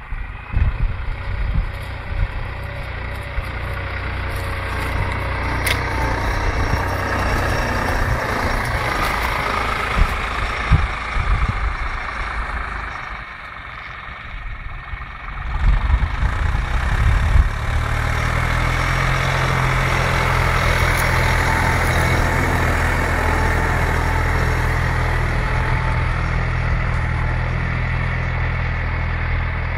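New Holland TT55 tractor's diesel engine running steadily under load while pulling a plough through the soil. It dips quieter for a couple of seconds about halfway through. Low thumps come near the start and again just after the dip.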